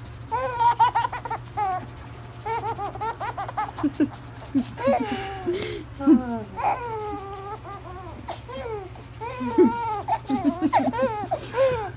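Young baby laughing, with bouts of short, high-pitched squealing giggles that come and go throughout.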